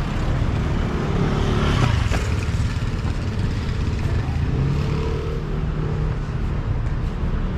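City street traffic: car engines running close by, with a louder swell about two seconds in.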